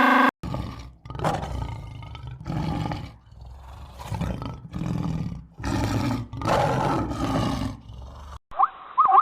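A big cat roaring: about five deep, rough roars in a row.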